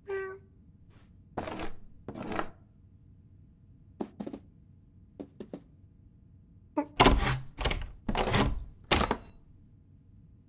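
Cartoon cat scratching and clawing at a wooden door in separate short bursts, after a brief cat mew at the very start. A run of louder scratching knocks comes about seven to nine seconds in.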